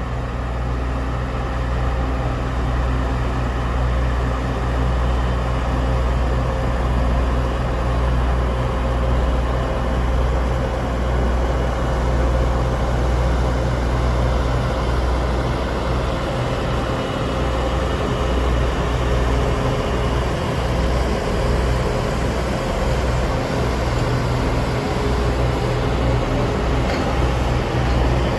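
Taiwan Railway DR1000 diesel multiple unit pulling slowly out of a station, its diesel engines running steadily with a low rumble and a steady hum.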